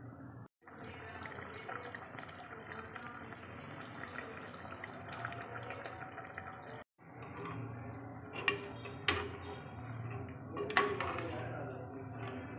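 Chicken and potato curry boiling in a metal pot, a steady bubbling. A metal ladle stirring it clinks sharply against the pot three times in the second half.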